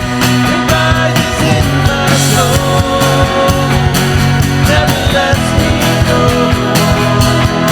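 A worship band playing a rock-style song, with held guitar or keyboard notes over a steady drum beat.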